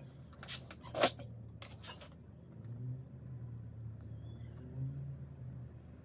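Small tools and parts being handled on a wooden workbench: three sharp clicks and clacks in the first two seconds, the middle one loudest, over a faint steady low hum.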